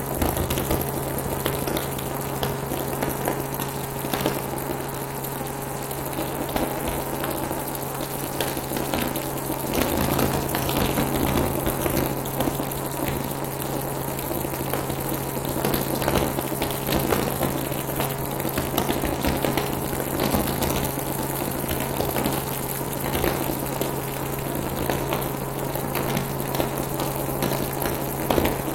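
Helicopter in flight: a steady engine and rotor hum under a constant rushing hiss.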